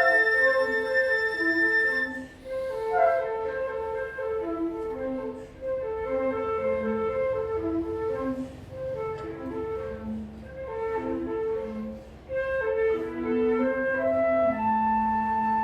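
Trio of piccolo, flute and alto flute playing. A high note is held for about two seconds, then the parts move in short repeated notes, and near the end they settle onto long held notes.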